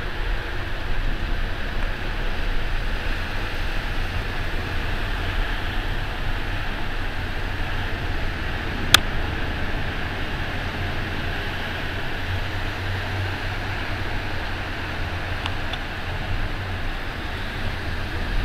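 Heavy rain pouring steadily, with a low rumble underneath and a single sharp click about nine seconds in.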